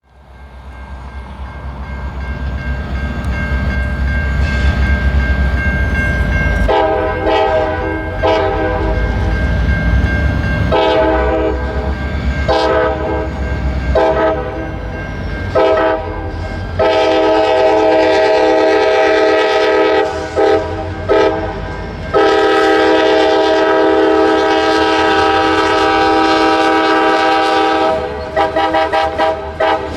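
A CSX diesel freight locomotive's engine rumbles closer, then its Nathan K5LA five-chime air horn plays a horn show. It starts about seven seconds in with a string of blasts lasting a second or two each, then two long held blasts, then a quick run of short toots near the end.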